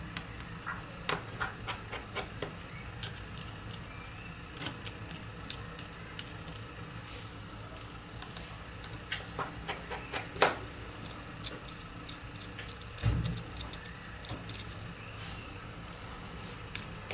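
Small metal clicks and ticks of a precision screwdriver working the tiny screws and metal plate of a Samsung Galaxy S7 Edge, coming in scattered clusters, with one louder click about ten seconds in and a dull bump about thirteen seconds in, over a steady low hum.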